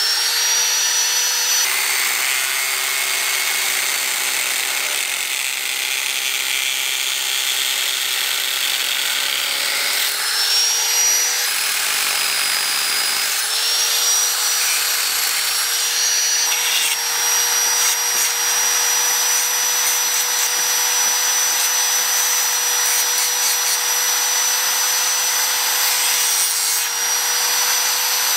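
Small angle grinder with a thin cutting disc running with a steady whine as it cuts through flattened PVC plastic. Its pitch dips briefly about ten seconds in and recovers a few seconds later.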